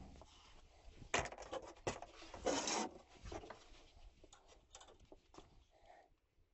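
Handling noises during furnace disassembly: a few sharp knocks and clicks, with a short scrape about two and a half seconds in, then fainter scattered clicks.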